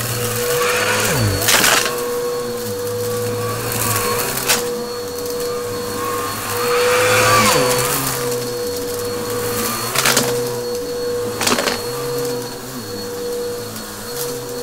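Upright bagless vacuum cleaner running on a shaggy rug with a steady motor whine and airflow rush. Its pitch dips briefly twice as the head is worked back and forth. Four sharp cracks come as crunchy debris is sucked up.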